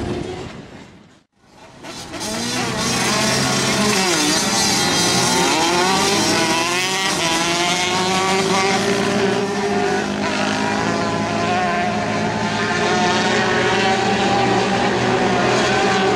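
A pack of small 65/85cc flat-track motorcycles racing, several high-revving engines running at once, their pitch rising and falling as they accelerate and back off. There is a brief dropout about a second in before the engines come back in.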